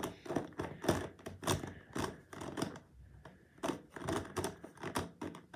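Plastic Megaminx puzzle being turned by hand through a face-turn algorithm: a quick, irregular run of clicks and clacks, several a second, with a short lull about three seconds in.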